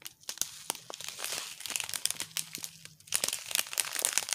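Small clear plastic bags of diamond painting drills crinkling as they are handled, in a dense run of irregular crackles.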